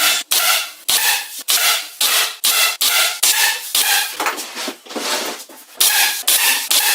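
Repeated rubbing strokes of an abrasive hand tool worked back and forth across a workpiece, about two strokes a second, each a short scraping hiss, with a brief pause about five seconds in.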